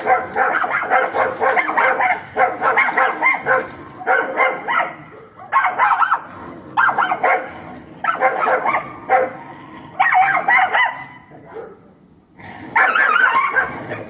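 Dogs fighting: barking, snarling and yelping in dense, rapid bursts with short breaks, and a brief lull about three quarters of the way through.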